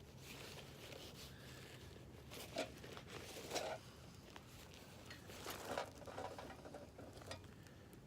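Faint rustling and handling of gear being dug out of a backpack, in several short bursts.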